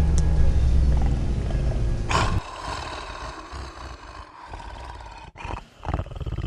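A man snoring: a long, loud, low snore that cuts off sharply about two and a half seconds in, followed by quieter fluttering breaths and another snore starting near the end.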